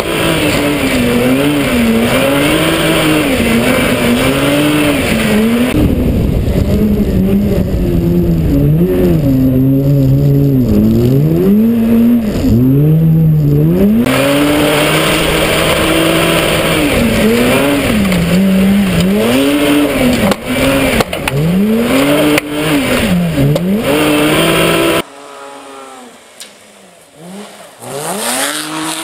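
Mitsubishi Magna front-wheel-drive V6 engine working hard at rally pace on a dirt stage, heard from the car itself, its pitch rising and falling every second or two as the driver accelerates and backs off. Near the end the sound drops suddenly to a fainter engine note, heard from beside the track as the car slides through a dirt corner.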